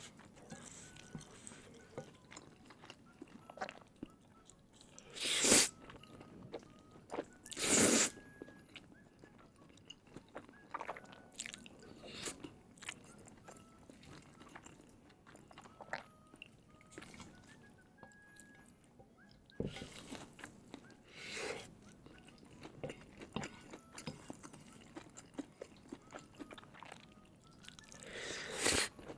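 Close-miked eating sounds: steady chewing with small wet clicks, and louder crunchy bites about five seconds in, about eight seconds in, and near the end.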